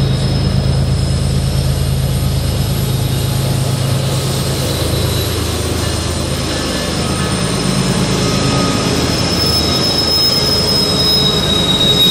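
BNSF GE ES44-series diesel locomotives working hard up a steep grade as they pass close by, a deep engine drone at first. From about four seconds in, a high-pitched wheel flange squeal from the wheels grinding through the sharp curve sets in and is loudest near the end.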